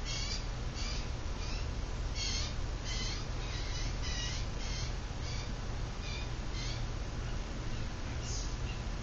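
Quorum Estate ceiling fan running with a steady low motor hum. Over it come short high chirps about every half second, with a pause near the end.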